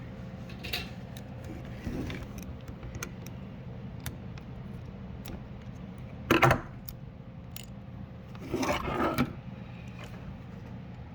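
Plastic clicks and rattles from a Subaru fuel pump hanger being pried apart by hand, its basket clips worked loose with a sharp tool. A louder clatter comes about six seconds in and a longer burst of rattling near nine seconds, over a steady low hum.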